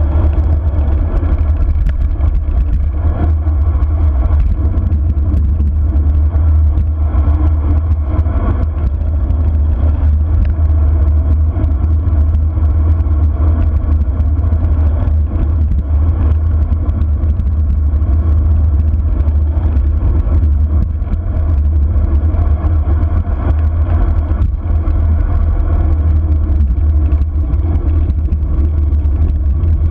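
Wind buffeting the microphone of a camera on a bicycle descending at speed: a loud, steady, deep rumble.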